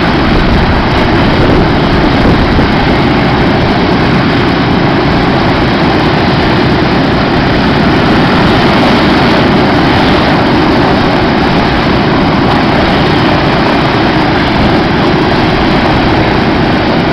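The Wright R-1820 Cyclone nine-cylinder radial engines of a B-17G Flying Fortress running at low power on the ground just after start-up: a loud, steady, rough drone with propeller noise.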